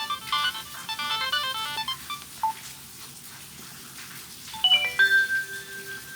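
A Samsung SGH-A157 flip phone's loudspeaker playing a Nokia ringtone: a quick run of electronic melody notes that stops about two seconds in. Near the end a few quick falling notes lead into a held tone.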